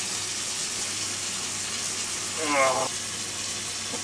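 Water from a hand-held shower running steadily into a bathtub, an even hiss. About two and a half seconds in there is a short, pitched vocal sound.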